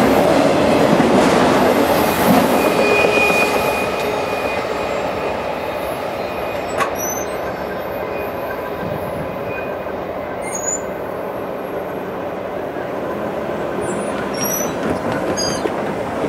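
Autorack cars of a Norfolk Southern freight train rolling past, steel wheels rumbling and clacking on the rails with a brief high wheel squeal, then fading steadily as the end of the train draws away.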